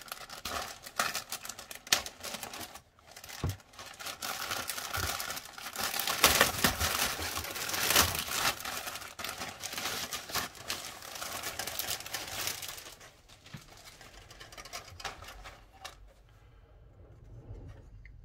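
A clear plastic bag crinkling and rustling as grey plastic model-kit sprues are slid out of it, with many light clicks of the plastic parts. It is loudest in the middle and dies away over the last few seconds.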